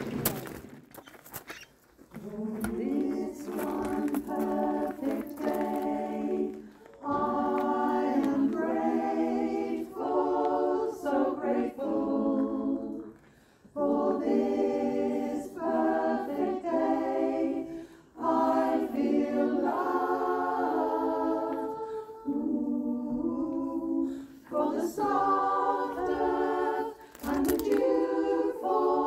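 Choir singing unaccompanied, in held phrases with short breaks for breath; the singing begins about two seconds in.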